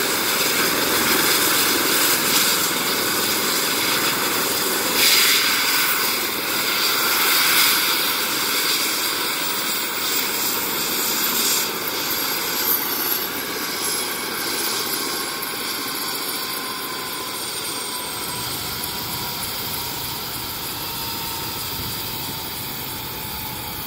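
Medical helicopter idling on the ground after landing, its turbine and rotor winding down: a loud steady noise that slowly fades, with whines that fall gently in pitch over the second half.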